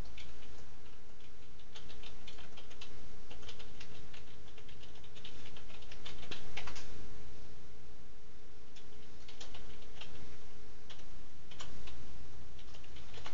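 A Siamese cat licking a person's hand: quick, irregular wet clicks of its tongue, coming in short runs.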